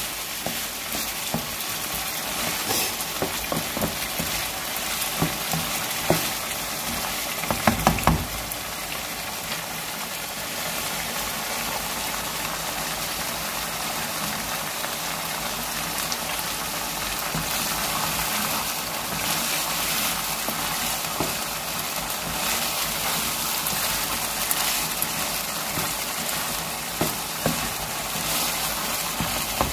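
Beef mince with bone pieces frying in oil in a wok over a high flame, a steady sizzle: the bhunai stage, with the mince's water cooked off. In the first eight seconds or so a spatula stirs and knocks against the pan.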